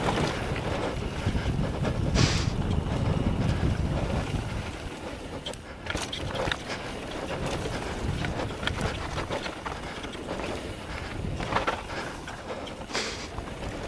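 Mountain bike descending a dirt downhill trail: tyres rolling over the ground with a constant patter of small clicks and rattles. There are two short hissing bursts, about two seconds in and near the end.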